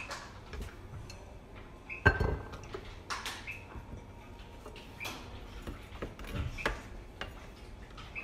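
Chef's knife cutting through carrot and cucumber onto a plastic cutting board: a few separate sharp knocks, the loudest about two seconds in, with lighter clicks as the vegetable pieces are handled and set down.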